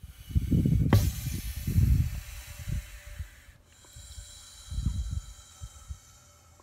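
Bullsnake hissing in two long exhalations, the first starting with a sharp knock about a second in and the second following after a brief break. Low rumbles run underneath.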